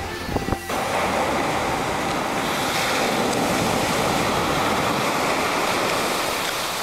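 Ocean surf breaking and washing up the beach, a steady rush of waves that starts abruptly under a second in, after a brief low rumble with a few clicks.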